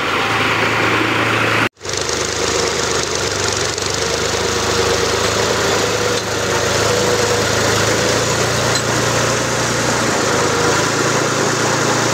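A tractor's diesel engine idling steadily, with a momentary dropout in the sound just under two seconds in.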